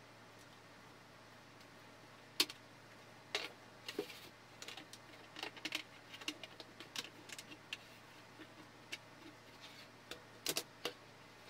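Handling of a 3D-printed plastic lampshade and its fittings on a table: scattered light clicks and taps, busiest in the middle, with a louder double knock near the end.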